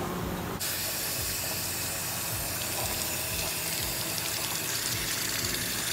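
Water running from a plastic standpipe tap over hands being washed. It is a steady rush of water that starts about half a second in.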